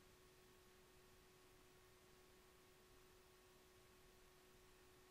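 Near silence: a faint steady hiss of the recording's noise floor with a thin steady hum-like tone.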